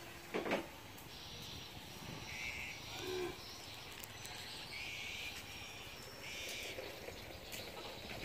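Faint outdoor ambience with short, high buzzy calls of small wild animals, repeating every second or so, and a brief low call about three seconds in.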